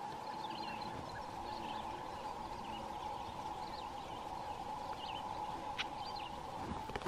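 Songbirds singing in the background, short chirps and warbled phrases scattered through, over a steady even hum.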